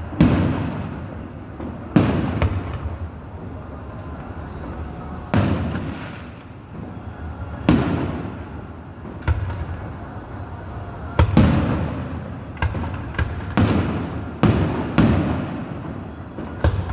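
Aerial fireworks shells bursting at a distance: about a dozen sharp booms at uneven intervals, each trailing off in a rolling echo, some coming in quick pairs near the middle and end.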